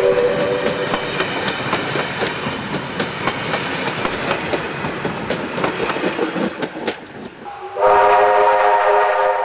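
Steam-hauled passenger carriages rolling past, wheels clattering over the rail joints; a steam whistle chord dies away in the first second. Near the end, steam locomotive 2705's whistle sounds a loud, steady chord of several notes.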